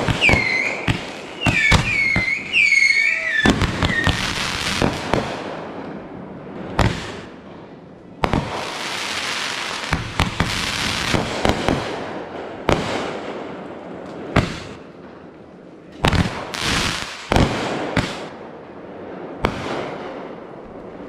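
Backyard consumer fireworks going off: a string of sharp bangs and crackling pops, some in quick clusters. In the first few seconds short whistling tones sound between the bangs, and about eight seconds in there is a longer hissing rush lasting several seconds.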